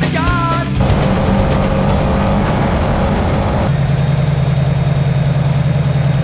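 Rock music with singing ends within the first second. From about four seconds in, the trophy truck's engine runs at low revs, heard from inside the cab as the truck rolls slowly to a stop. It is a steady low rumble with a fast, even pulse.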